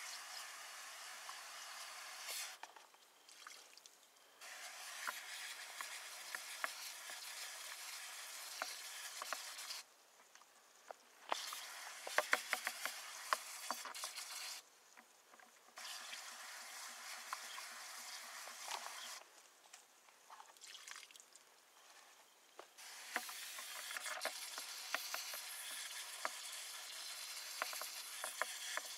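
Corded drill spinning a brush against wet slurry in a plastic bucket, whipping it into froth: a steady frothy hiss that cuts out and starts again four times, with a run of clicks about twelve seconds in.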